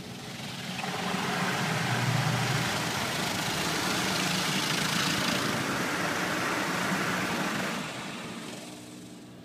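Automatic car wash equipment working over the car, heard from inside the cabin: a rushing noise that swells about a second in, holds, and fades near the end, over a faint low hum.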